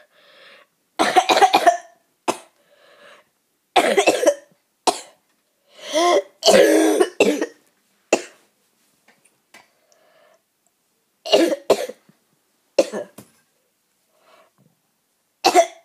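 A boy coughing over and over from a bad cough: short coughs in fits, the longest fit about six seconds in, with quiet gaps of a second or more between them.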